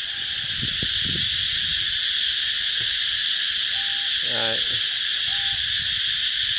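A dense chorus of cicadas in roadside trees: a loud, shrill, unbroken buzz.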